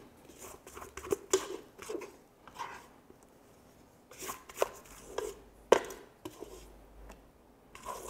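Kitchen handling sounds: scattered light taps, knocks and brief scrapes, with one sharper knock about six seconds in. No mixer motor is heard running.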